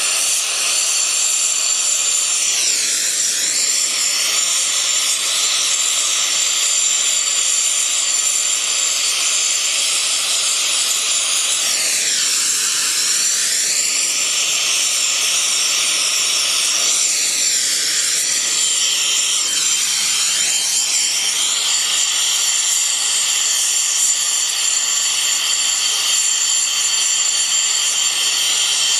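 Gas torch flame hissing steadily at full heat while it melts brazing rod into the broken teeth of a steel lathe backgear. The tone of the hiss sweeps down and back up a few times as the torch shifts.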